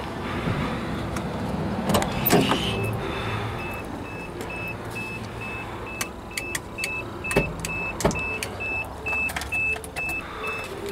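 A 1989 Toyota Land Cruiser's door is opened with a click about two seconds in, then the truck's warning chime beeps steadily about twice a second, with a couple of knocks along the way.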